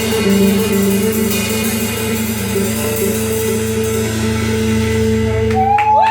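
A live band holds its final chord, with steady sustained notes ringing. Near the end, whoops and shouts from the crowd break in.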